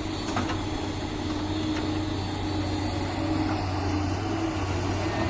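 Heavy diesel engine running steadily, a low even drone with a slightly wavering note.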